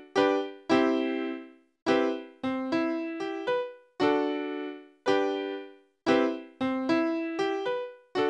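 Music: an electric piano playing a slow, repeating phrase of single notes and small chords, each struck and dying away, with brief gaps between groups.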